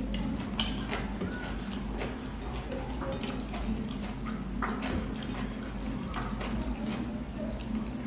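Fingers mixing rice with fish curry on a stainless steel plate: irregular wet squishing with small clicks against the steel, then eating sounds as a handful goes to the mouth near the end. A steady low hum runs underneath.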